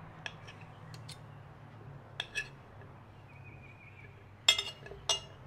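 A knife tapping and clinking against a plate while cheese is cut into cubes. A few light taps come first, then louder clinks about four and a half and five seconds in.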